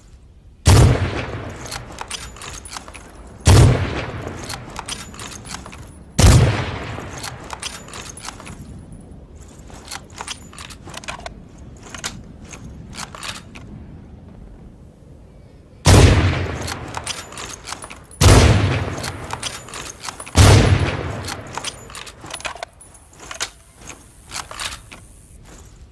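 Six single shots from an M40 bolt-action sniper rifle, each a sharp loud crack trailing off over a second or more. Three come about three seconds apart, then after a pause of roughly nine seconds three more follow a little faster. Fainter sharp clicks sound between the shots.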